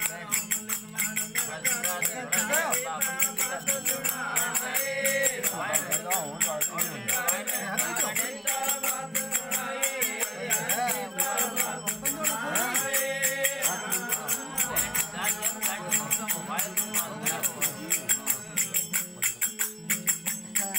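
Rajasthani folk bhajan music: a harmonium melody over a steady drone, with rhythmic jingling hand percussion keeping a fast, even beat.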